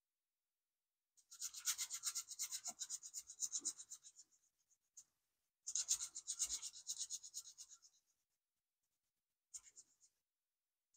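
Sandpaper rubbed quickly back and forth along a thin metal electrode strip to sand off surface oxidation, in two spells of a few seconds each with a pause between, then a brief rub near the end.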